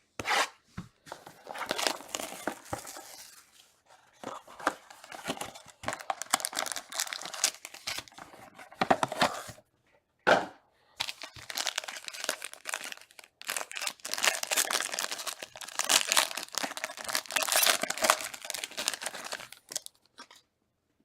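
Trading-card packaging being torn open and crinkled by hand: the wrapper of a sealed card box or pack ripping and rustling in repeated bursts with short pauses.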